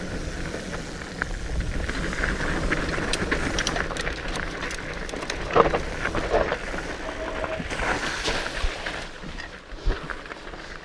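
Fat bike riding along a dirt trail: steady tyre and wind noise on the microphone, with scattered clicks and rattles and a couple of brief squeaks around the middle.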